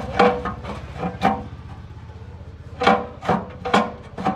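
About eight irregular blows on metal, loosely in pairs, each with a short ringing note, like a hammer working a truck part. A steady low hum runs underneath.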